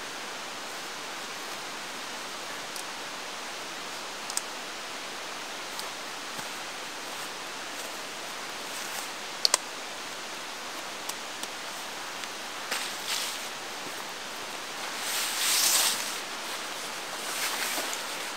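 Nylon tent rainfly rustling as it is handled and shaken out, in several bursts through the second half, the loudest about two-thirds of the way in, over a steady hiss. Before that, a few light clicks, with a sharp double click about halfway.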